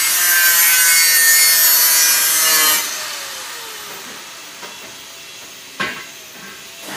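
Angle grinder grinding stainless steel tubing, a loud harsh grind that stops about three seconds in, its whine falling as the disc spins down. A single sharp knock of metal near the end.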